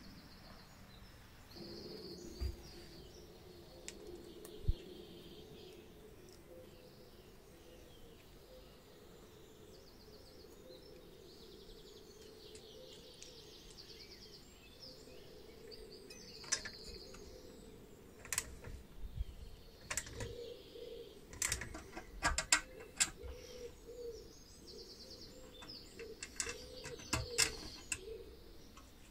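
Sharp clicks and small metal taps from parts being handled and fitted during reassembly of a battery charger, coming in a scatter in the second half. Faint bird chirping sits in the background.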